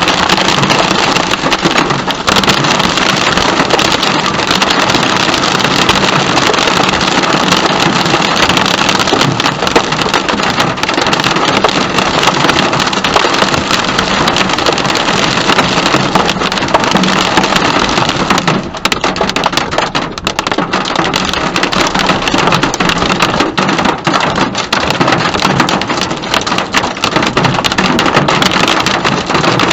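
Loud, steady downpour of storm rain hitting a car, thousands of tiny drop impacts blending into a continuous hiss, easing slightly for a couple of seconds past the middle.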